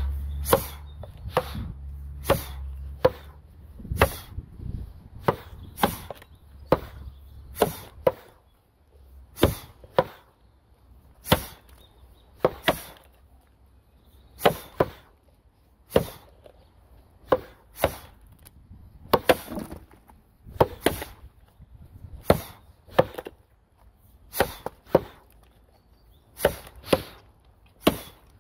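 Axe blows biting into a log in an underhand standing chop, a Gränsfors Bruk axe and a Tuatahi racing axe cutting the same wood. Sharp strikes come about one a second, some in quick pairs, with chips splitting away.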